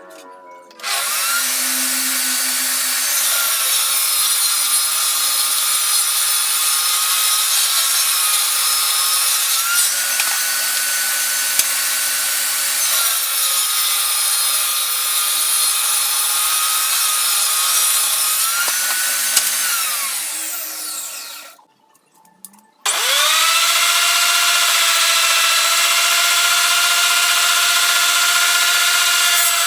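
Electric power tool cutting wood: the motor starts with a high whine and hiss, dips briefly in pitch a few times as if under load, winds down and stops about two-thirds of the way through, then starts again and runs steadily.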